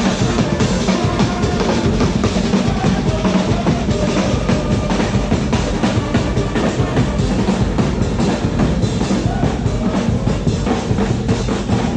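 Loud dance music with a driving drum-kit beat: bass drum, snare and rimshots.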